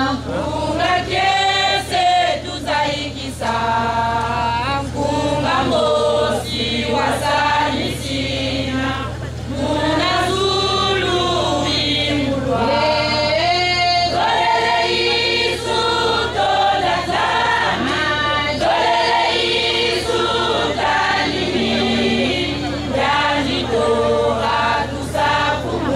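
Church choir singing together, a women's choir with many voices moving through a melodic line. A steady low hum runs underneath.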